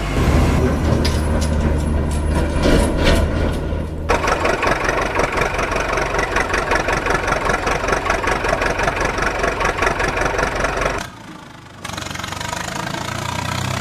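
A motor running with a rapid, even chatter, with clicks and knocks in the first few seconds. Near the end it cuts off suddenly, then resumes more quietly.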